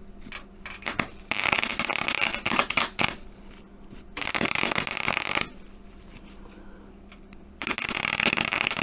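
Gasless flux-core MIG welder arcing on thin car-body sheet steel in three crackling bursts of one to two seconds each, with a few spits before the first. The settings are not right yet: the welder has just turned the wire speed down and thinks it may now be too slow.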